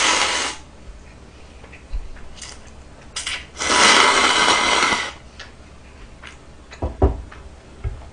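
A person slurping ramen noodles and broth from a bowl. One long slurp ends about half a second in, and a second, longer slurp runs from about three and a half to five seconds in, with small chewing clicks between.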